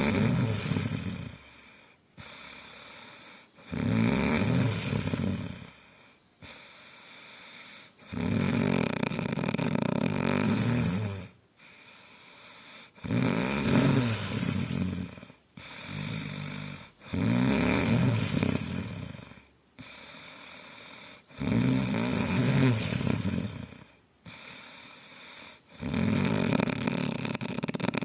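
Loud snoring, a long rasping snore about every three to four seconds, eight in all, with quieter breaths between.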